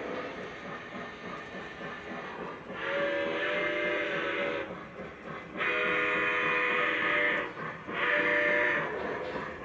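Model steam locomotive's electronic chime whistle sounding three blasts, long, long, short, over the steady running and chuff sounds of the O-scale train on the track.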